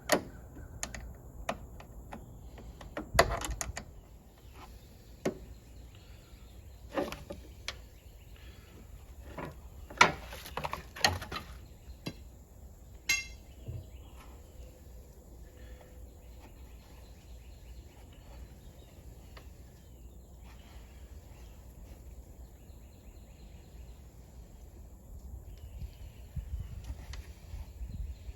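Scattered metal clinks and knocks of hand tools working on a riding mower's starter solenoid, with a quick run of clicks about 13 seconds in, then a long quiet stretch of background.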